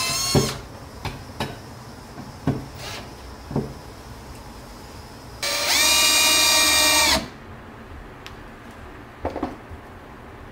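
Bosch cordless drill-driver running as it drives screws to fix a brass handle onto a walnut cutting board. One run stops about half a second in, a few light knocks follow, then a second run of under two seconds starts about five and a half seconds in. Two quick clicks come near the end.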